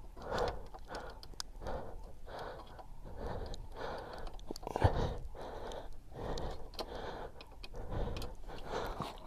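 Light metal clicks and scraping as a screwdriver levers against the brake pads and pushes back the pistons of a Suzuki B-King's front brake caliper, with one sharper click about five seconds in.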